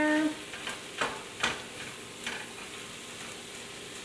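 Pinto beans and spices sizzling in a frying pan while a wooden spoon stirs them, knocking and scraping against the pan a few times in the first couple of seconds.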